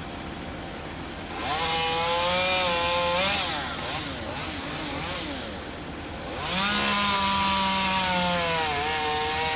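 Two-stroke chainsaw cutting wood, revving up about a second and a half in for a two-second cut, easing off, then revving into another cut about two thirds of the way through.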